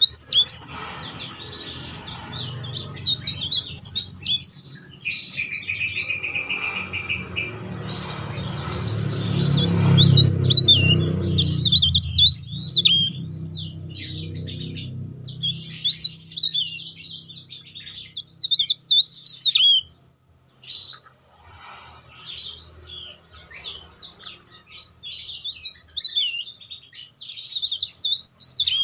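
Caged cikrak daun (mountain leaf warbler) singing its dense, loud song in repeated bursts of rapid, high twittering and whistled rolls, with brief pauses between phrases. A low rumble underlies the first half, loudest around ten seconds in.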